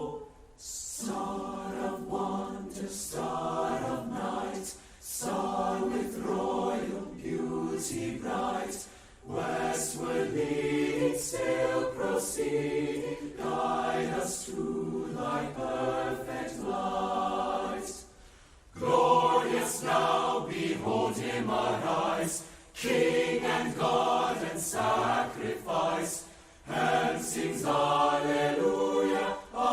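A student choir singing a carol in several voice parts, in sung phrases broken by short breath pauses.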